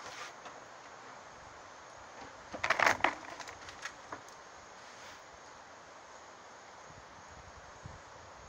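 Steady wind noise from hurricane weather, with a brief burst of sharp crackling clicks about three seconds in.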